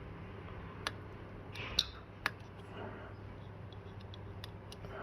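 A few sharp, separate clicks and ticks of small hand tools working on a phone's circuit board, three louder ones in the first half and fainter ticks near the end, over a low steady hum.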